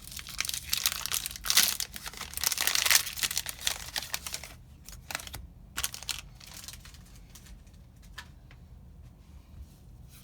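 Foil booster-pack wrapper crinkling and being torn open, loudest in the first four seconds or so, then fainter scattered rustles and clicks.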